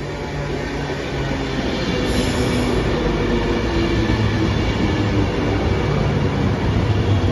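A train approaching and running past at close range, its rumble growing louder over the first few seconds and then holding steady with a low hum.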